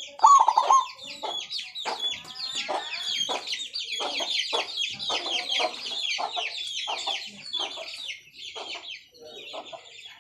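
Zebra doves (perkutut) calling with rapid, repeated coos and grating notes, over a dense run of high chirping from other small birds. The loudest call comes about half a second in.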